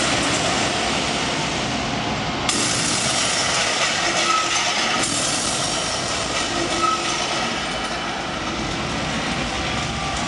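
Large arena crowd cheering and shouting, a steady dense roar.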